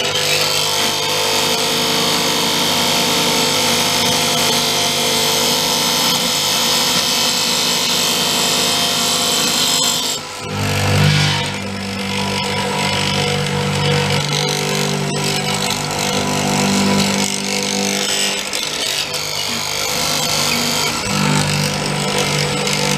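Multico K/3 hollow-chisel mortiser running and cutting square holes: a steady motor hum with a bright hissing cut for about the first ten seconds. After a brief dip the hum carries on, stronger and lower.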